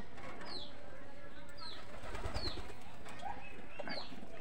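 A flock of domestic pigeons cooing while they feed, with short high falling chirps about once a second over the cooing.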